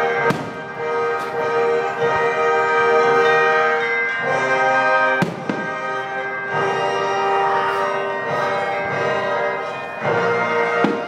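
Orchestra playing sustained music while firework shells burst with sharp bangs: one just after the start, one about halfway and one near the end, with a few fainter pops between.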